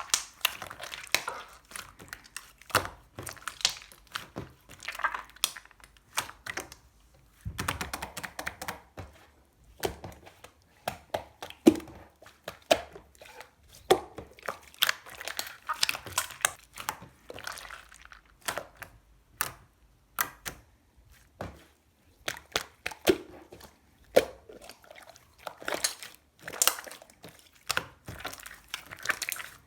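Hands squeezing, folding and stretching slime, giving many irregular sticky clicks, pops and squelches.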